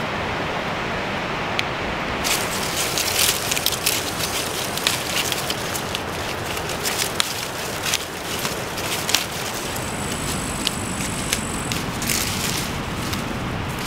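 Dry bean vines and pods rustling and crackling as they are picked by hand, with many small snaps and clicks over a steady background hiss.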